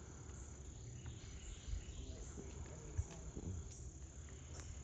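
Crickets chirping as a steady, continuous high-pitched evening chorus, with a couple of soft low thumps about a second and a half and three seconds in.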